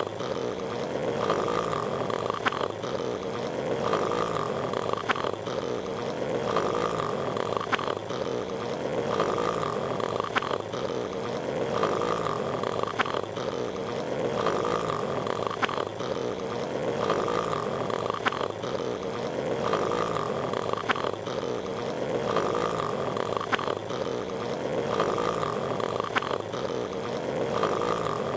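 Patrick Star's cartoon snoring, looped: a rhythmic snore that repeats about every two and a half seconds, each cycle marked by a short sharp click.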